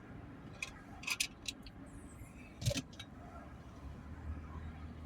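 Steady low road rumble inside a moving vehicle, with a few sharp clicks and rattles and one louder knock a little under three seconds in.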